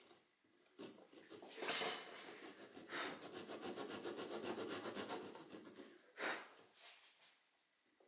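Japanese pull saw cutting a small hardwood frame piece against a guide block, a fast run of short rasping strokes that starts about a second in and goes on for about five seconds, with one last short stroke before it stops.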